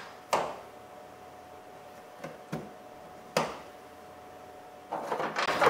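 Plastic push-in retaining clips on a Chevy Malibu's front grille being pressed into place, each seating with a sharp click; four separate clicks, then a short run of small rattling clicks near the end.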